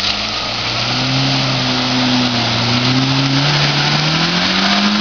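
Off-road 4x4's engine pulling through deep mud, holding steady revs and then revving up about three and a half seconds in and staying high, with the tyres churning through mud and water.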